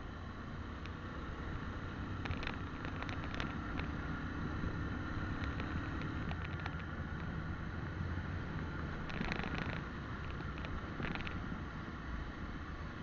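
Motorcycle riding along a road, heard from a camera mounted on the bike: a steady engine hum under wind and road noise, with clusters of short clicks a couple of seconds in and again past the middle.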